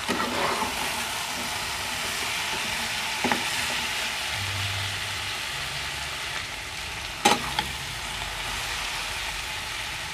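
Pieces of pressure-cooked muscovy duck sizzling in oil and ground spice paste in a nonstick wok as a spatula stirs them through, a steady sizzle with a few sharp knocks of the spatula on the pan, the loudest about seven seconds in.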